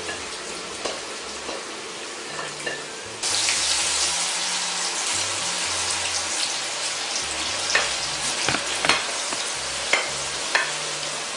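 Cut potatoes frying in hot sunflower and olive oil, a steady sizzle. About three seconds in the sizzle suddenly gets louder and brighter, and a few short sharp clicks sound over it near the end.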